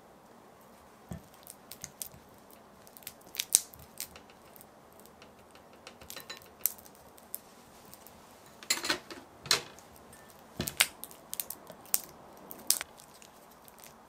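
Kitchen handling sounds from cooking prep: scattered light taps, clicks and short scraping noises of utensils and ingredients being handled, with a few sharper ones about three and a half seconds in and a cluster of louder scrapes past the middle.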